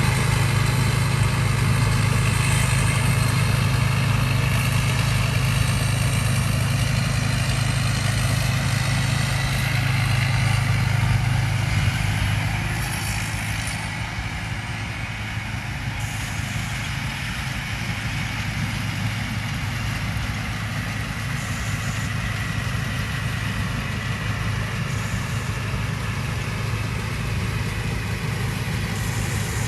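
Combine harvester's engine running steadily with the clatter of its harvesting machinery, a deep hum under a busy mechanical rattle; it gets a little quieter about halfway through.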